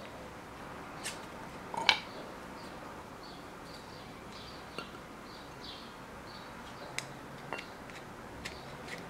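Glass jar, glass bowl and wooden stick clicking and tapping as solid coconut oil is scooped from the jar into the bowl, with a sharper knock about two seconds in. Faint, short high chirps repeat in the background.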